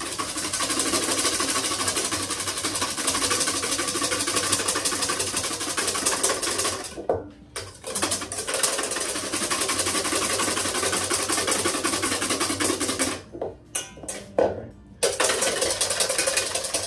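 Balloon whisk beating egg whites in a stainless steel bowl: rapid, continuous strokes of wire against metal. The strokes stop briefly about seven seconds in and again for a couple of seconds near the end. The whites are past the frothy stage and lightening in colour, but not yet holding peaks.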